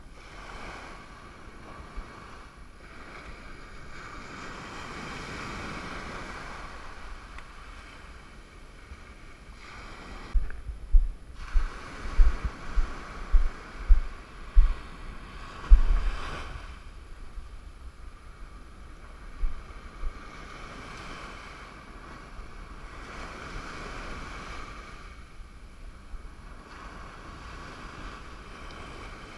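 Ocean surf washing up and draining back over the beach in slow swells, with wind on the microphone. Partway through comes a run of sharp low bumps on the microphone.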